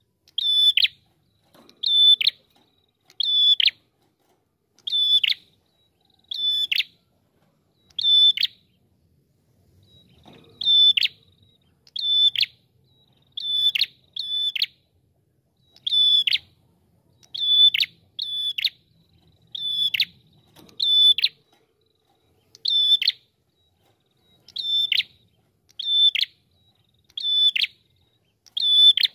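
Red-headed tailorbird (prenjak kepala merah) calling over and over: a loud, high, sharp note that drops steeply at its end, repeated about every second, with a short pause about nine seconds in.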